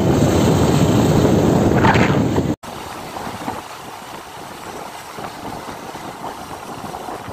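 Wind buffeting the microphone and riding noise on a moving motorbike. It is loud at first, then drops suddenly about two and a half seconds in to a quieter, steady rush.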